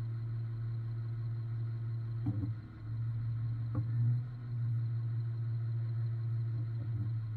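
Heavy tow truck's engine running with a steady low hum, with two faint knocks a little over two and nearly four seconds in.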